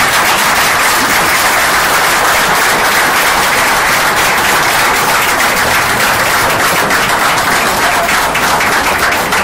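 A group of people applauding, a steady, dense patter of handclaps.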